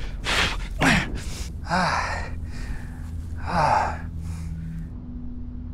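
A man's heavy, winded breathing, out of breath from a sprint: sharp in-breaths and gasps in the first two seconds, then a long voiced sigh a little before four seconds in.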